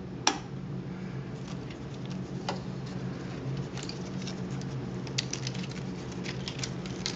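Small clicks and ticks of 16mm film and the projector's metal rollers and arms being handled as film is threaded onto the sprockets of a Mills Panoram projector: one sharper click about a third of a second in, another at about two and a half seconds, then a quick run of light ticks in the second half.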